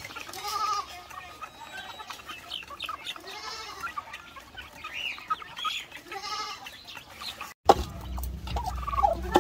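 Chickens clucking, with several drawn-out calls that rise and fall in pitch. Near the end the sound cuts off for a moment and gives way to a low rumble with scattered clicks.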